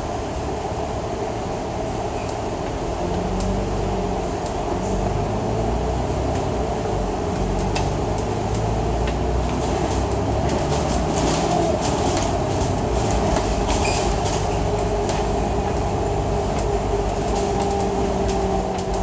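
Citybus bus on the move, heard from inside: a steady engine and road rumble that grows louder about four seconds in, with light clicks and rattles through the middle.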